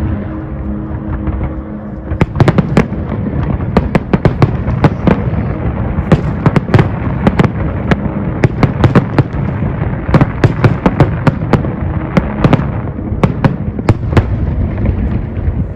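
Fireworks display: rapid, irregular cracks and bangs over a continuous low rumble, thickest from about two seconds in until near the end.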